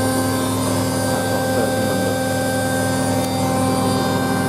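Hoover Ecologic 1300 front-loading washing machine spinning at high speed: a steady motor-and-drum whine with several held tones over a constant rush.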